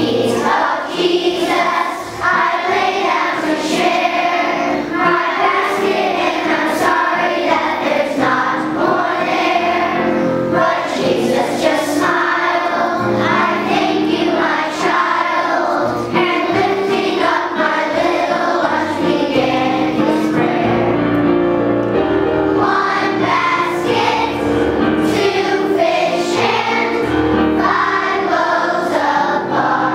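A group of young children singing a hymn together as a choir, without a break.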